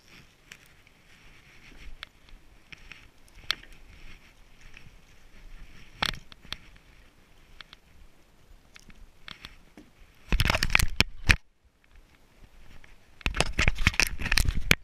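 Scattered small clicks and rustles as a caught herring and the tackle are handled, then two loud bursts of crackling, rumbling noise on the camera's microphone, one about ten seconds in and one near the end.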